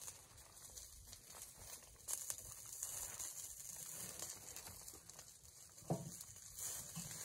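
Rain pattering steadily on a tarp shelter, with the crinkle of a nylon rain poncho as the wearer moves; the hiss grows stronger about two seconds in. A short low call sounds once, about six seconds in.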